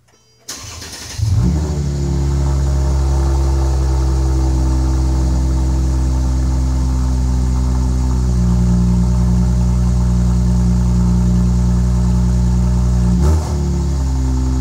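Mercedes-Benz E350 (W212) V6 cold start heard at the tailpipe of a muffler-deleted exhaust. The starter cranks briefly, the engine catches with a loud flare, then settles into a steady, loud idle. Near the end the engine speed briefly rises and falls.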